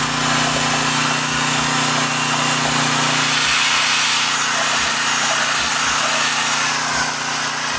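A power tool's motor running steadily while it churns a batch of sand mortar, with a harsh scraping noise over a high whine.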